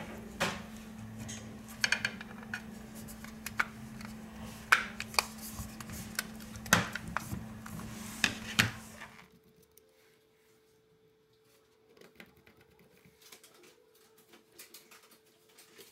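Sharp clicks and taps of fingers and small tools on a smartphone's metal frame, circuit board and connectors as it is put back together, over a steady low hum. About nine seconds in, the sound drops to faint, scattered ticks.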